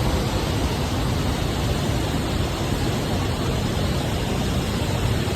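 Steady, loud rushing roar of Vernal Fall's falling water.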